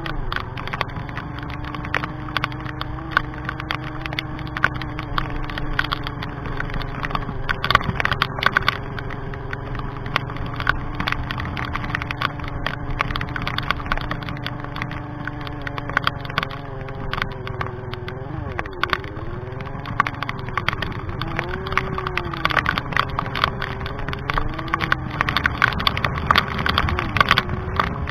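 Sigma 250cc motorcycle engine running at low speed on the rider's bike, its note holding steady and then rising and falling several times in the last third as the throttle is worked. Frequent sharp clicks and crunches of the tyres rolling over wet gravel run through it.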